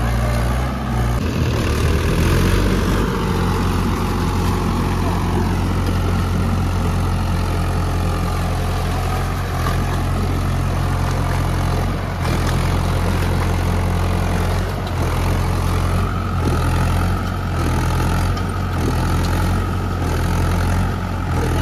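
Tractor diesel engine running continuously with a deep, steady low note. The engine note shifts about a second in, and a higher steady whine joins about sixteen seconds in.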